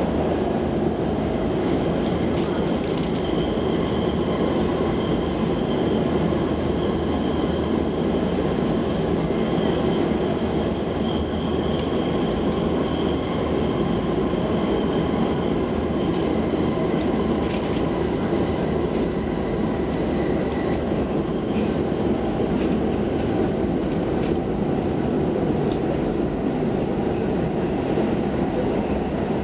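Stockholm metro C14 train car running steadily between stations, heard from inside: a continuous dense rumble of wheels on rail. A faint high whine rides over it for several seconds, then shifts lower for a few seconds more.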